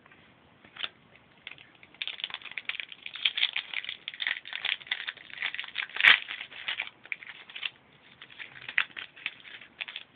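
Foil trading-card pack being torn open and crinkled by hand. A dense run of crackling starts about two seconds in, with one sharp snap about six seconds in, then lighter crinkling.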